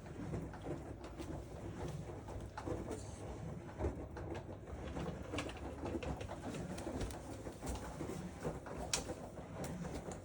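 Moluccan cockatoo making low cooing, growling sounds while it plays, with scattered clicks and taps, over a steady low rumble.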